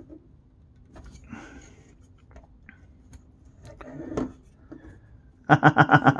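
Small clicks and soft rubbing of a plastic toy mech figure's jointed parts being turned and repositioned by hand. Near the end a man's short, rhythmic laugh is the loudest sound.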